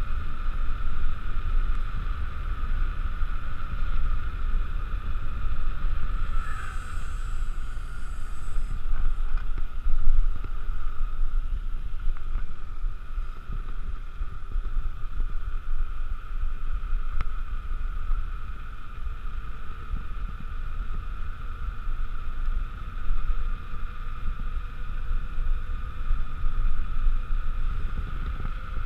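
Wind buffeting the camera microphone and mountain-bike tyres rolling on asphalt during a fast coasting descent, a rough low rumble that swells and dips, with a steady high hum.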